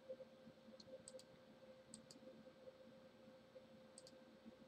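Faint computer mouse clicks, several in quick pairs, over a low steady electrical hum.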